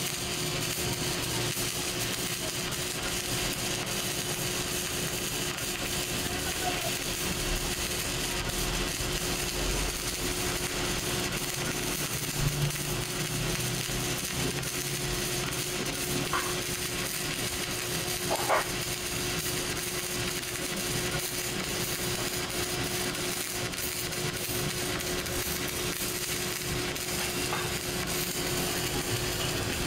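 Electric arc welding: a steady crackling hiss from the arc, over a constant hum, running without a break.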